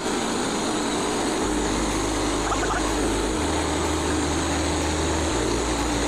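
Frontier OS27 portable band sawmill running steadily under power, its small gas engine driving the band blade through an ash log on the first slab cut.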